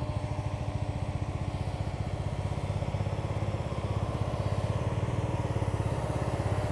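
Motorcycle engine running at low speed with an even, rapid low chugging pulse as the bike creeps over a loose gravel track.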